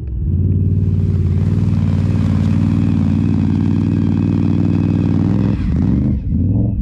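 Can-Am Renegade ATV's V-twin engine pulling away and running steadily under throttle. About five and a half seconds in the engine note wavers and dips, then picks up again.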